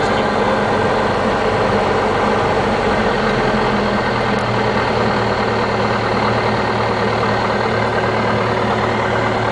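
Diamond DA40 Diamond Star's piston engine and propeller running steadily at low taxi power, heard from inside the cockpit. The engine note shifts slightly about three seconds in.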